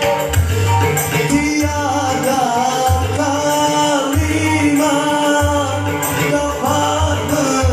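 Music: a voice singing long, wavering notes over a band backing with a pulsing bass beat.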